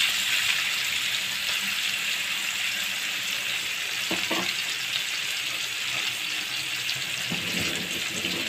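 Hot oil sizzling steadily in a frying pan as onions fry in the oil left from frying fish.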